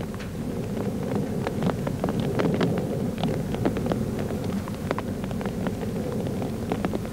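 A train's engine running with a steady low rumble, with irregular clanks and knocks several times a second over it.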